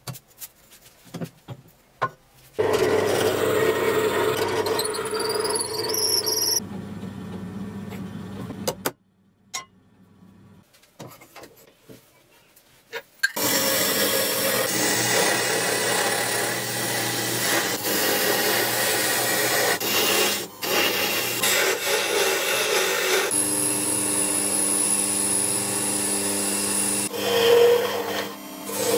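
Small Proxxon DB 250 mini wood lathe running steadily while a hand gouge cuts a spinning wooden handle blank, the motor hum mixed with the scrape of the cut. Before that come a shorter stretch of a running machine and a quiet pause with handling clicks. From about two-thirds of the way in, a thin, high, steady whine joins.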